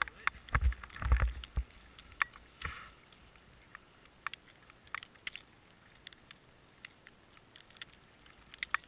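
Snow and gear knocking and crunching right against a helmet camera while a buried snowmobile is hauled out of deep powder: a burst of heavy thumps and clicks in the first two seconds, then scattered sharp clicks. No engine is running.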